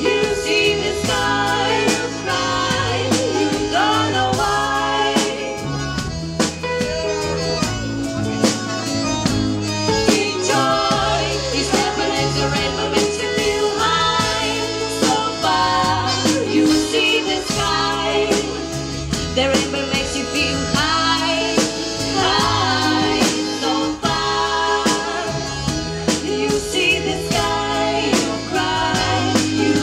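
Live band music with women singing into microphones over a steady drum beat and bass line.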